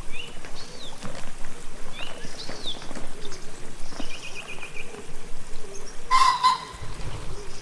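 Small birds chirping and trilling in short high phrases, with one louder, lower call about six seconds in.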